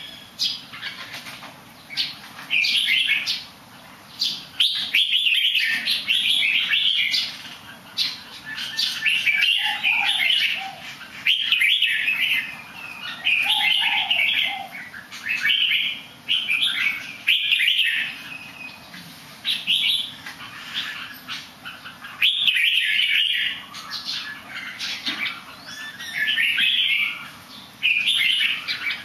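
A songbird singing short, bright phrases over and over, one every second or two, with brief wing flutters between them.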